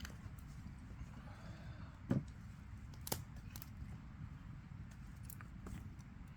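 Campfire crackling with scattered small pops and a sharper snap about three seconds in, over a steady low rumble. A dull thump comes about two seconds in.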